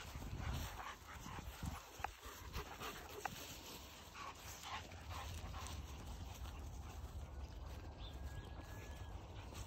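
Several dogs running and playing on grass: scattered dog noises and quick scuffing footfalls over a steady low rumble, with one sharp click about two seconds in.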